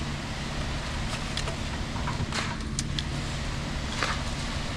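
Ford 7.3 L Godzilla gasoline V8 powering a Reed B50G concrete pump, running steadily at part throttle while pumping, smooth and quiet. A few brief hissing clicks come about halfway through and near the end.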